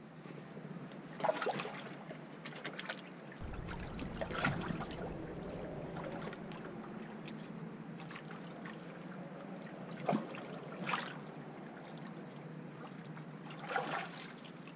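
Shallow bay water splashing and sloshing as a wading angler lowers a redfish into the water to release it: several short splashes over steady lapping water.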